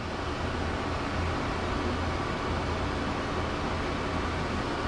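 A running fan: a steady, even whoosh with a constant low hum.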